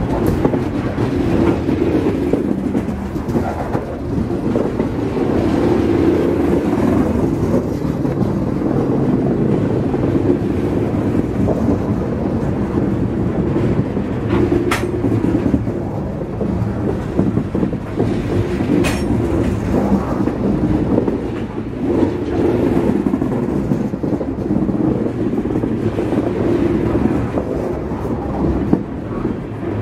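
Freight train of coal hopper cars rolling past close by, a steady noise of steel wheels running on the rails. Two brief sharp sounds stand out about fifteen and nineteen seconds in.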